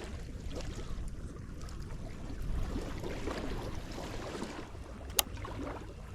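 Wind rumbling on the microphone outdoors, with one sharp click about five seconds in.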